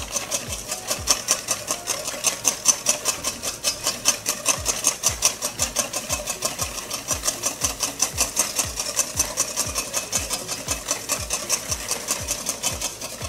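Metal wire whisk beating egg whites in a stainless steel bowl: a rapid, even clatter of wire against the metal bowl, about five strokes a second. The whites are frothing up toward soft peaks.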